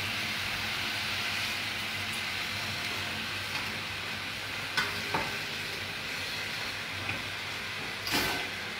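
Onion and vegetable broth sizzling steadily in a frying pan, with a couple of light clicks midway and a short clatter near the end.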